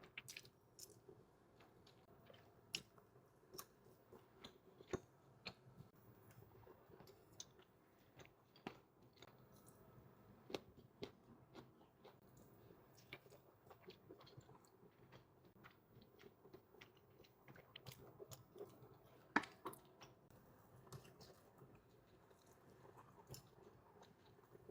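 A person chewing and biting food, with many small sharp mouth clicks at uneven intervals and a sharper one about 19 seconds in.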